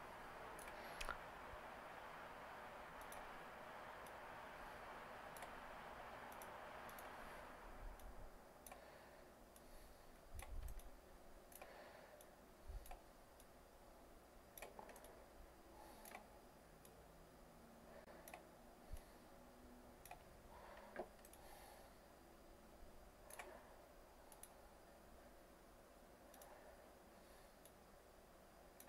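Faint, scattered clicks of a computer mouse at irregular intervals, over near-silent room tone. A steady hiss under them stops suddenly about seven or eight seconds in.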